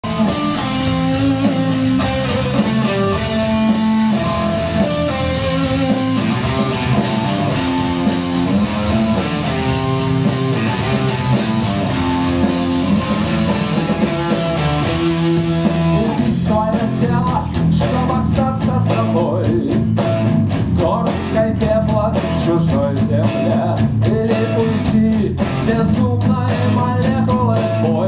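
Live rock band playing an instrumental intro: electric guitar melody over bass guitar, with the drum kit coming in fully just past halfway through.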